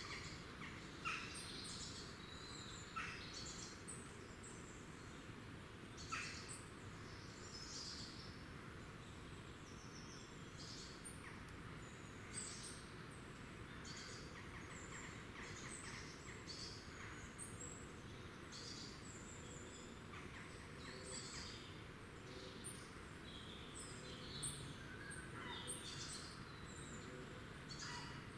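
Small woodland songbirds calling: many short, high chirps and thin notes scattered throughout, a few sharper and louder, over a steady low background hiss.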